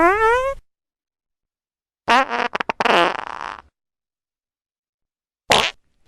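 Fart sound effects, three in a row with silent gaps between. A short pitched fart rises in pitch at the start, a longer sputtering fart that breaks up comes about two seconds in, and a brief one comes near the end.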